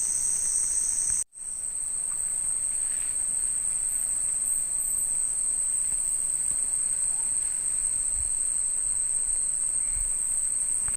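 Steady, high-pitched chorus of night insects in a tropical forest. It cuts out for a moment about a second in and comes back slightly higher and narrower.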